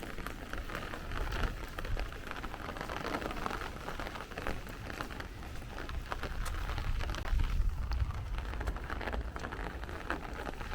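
Steady rain falling and splashing on the street, with many close drop hits and a low rumble underneath.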